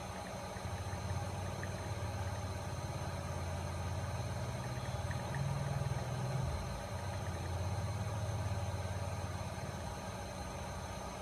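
Hot air rework station's blower running with a low hum that swells and eases, dipping briefly about two-thirds of the way through, as it heats solder on the audio IC.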